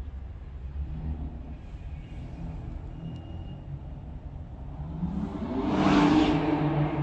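A car driving past: a low engine rumble that swells to its loudest about six seconds in.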